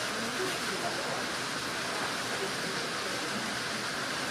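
Steady rushing noise, like running water, holding an even level with no distinct events.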